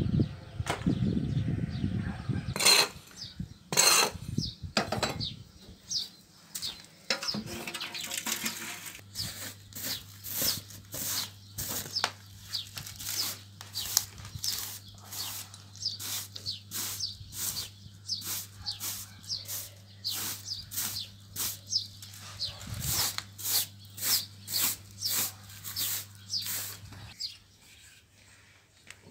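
A low rumble for the first couple of seconds, then repeated scraping strokes, about one to two a second, as glowing embers and ash are raked and swept across the clay floor of a pit oven.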